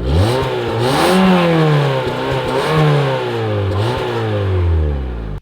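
Fiat Punto's engine revved through its exhaust, loud. The revs are blipped up about four times, each rise falling back, before a longer drop and an abrupt cut-off. The exhaust note sounds like a leaf blower.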